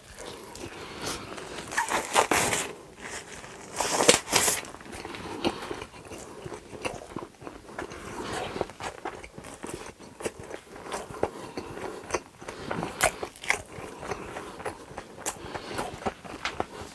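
Close-miked eating sounds: two loud crunchy bites about two and four seconds in, then steady chewing with small crackles and clicks.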